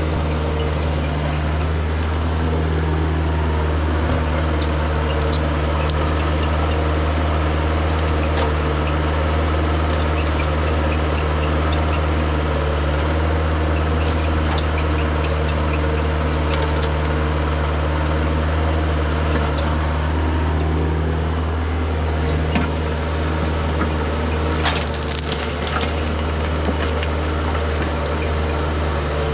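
Kubota KH-040 mini excavator's diesel engine running steadily as it works, with branches crackling and snapping in the bucket and thumb. A louder crunch comes near the end as the bucket digs back into the brush pile.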